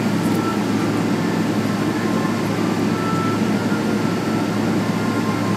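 Cabin noise inside a Boeing 777-300ER taxiing, heard from a window seat over the wing: a steady low rumble and hum from its GE90-115B engines at taxi power, with faint high whining tones coming and going.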